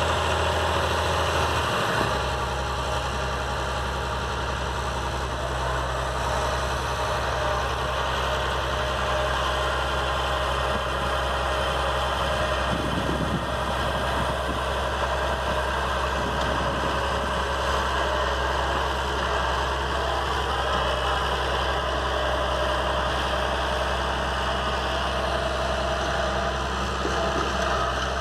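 Massey Ferguson 296 tractor's diesel engine idling steadily with a deep note; its note shifts slightly about two seconds in, then holds.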